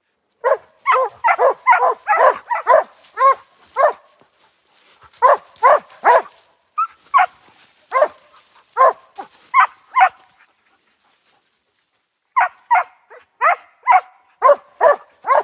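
Hunting dog barking in runs of quick, sharp barks, about three a second, with short pauses between the runs.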